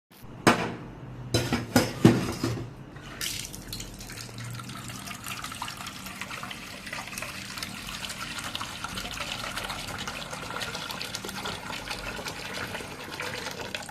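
A few knocks of cookware being handled, then water running steadily into a container from about three seconds in, as water is filled for boiling instant noodles.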